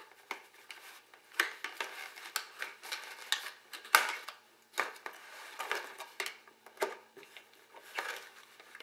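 Irregular clicks, scrapes and rustles of a plastic toy blaster and its cardboard packaging tray being handled while its twist-tie wires are taken off, with a sharper click about four seconds in.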